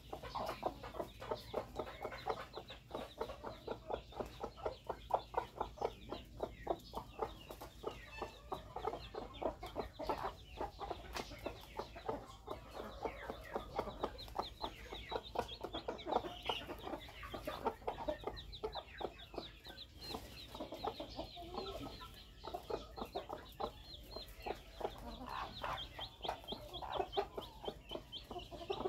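Chickens clucking, a steady run of short clucks in quick succession, with higher, thinner calls mixed in now and then.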